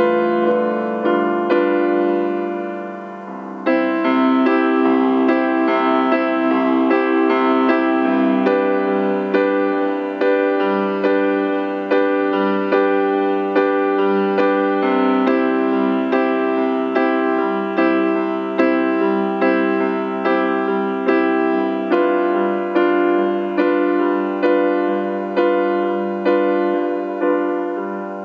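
Instrumental hymn tune played on a keyboard with a piano sound, chords struck slowly and left to fade, with a short drop in level about three seconds in before the next phrase starts.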